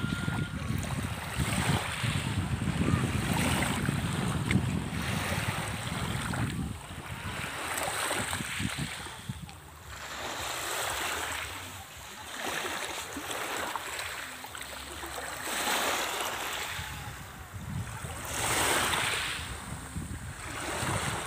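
Sea waves washing in, with the rush of water swelling and fading every two to three seconds. A low rumble of wind on the microphone is heavy for about the first six seconds, then drops away.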